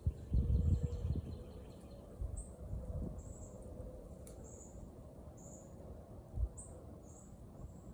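Short, high-pitched chirps repeating about every half second to a second, from a bird or insect on the trail, over low rumbling thumps on the microphone that are loudest in the first second.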